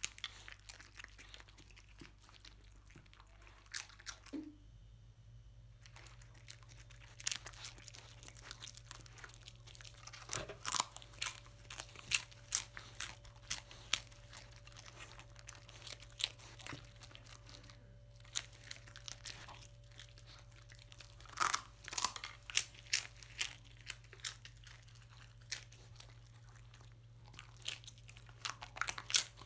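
A dog crunching and chewing crisp scorched rice crust (nurungji), with sharp, irregular crunches that come in bunches and a short pause about five seconds in.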